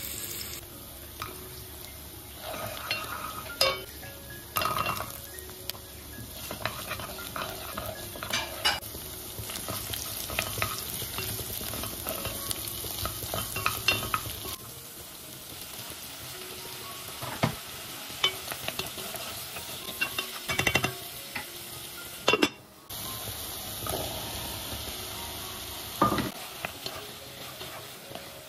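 Chopped onion and vegetables sizzling in oil in a nonstick pot while a wooden spoon stirs, scrapes and knocks against the pan, with thicker stirring of beans and tomato paste later on.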